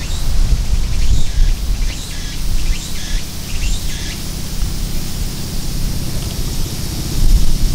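Outdoor ambience: small birds chirping in short, repeated calls during the first half, over a loud low rumble. A faint steady high hiss carries on through the second half.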